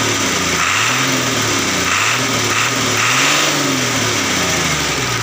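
Diesel truck engine being revved several times, its pitch rising and falling with each blip of the throttle. It blows white exhaust smoke when revved, which the mechanic puts down to injector nozzles that may be faulty.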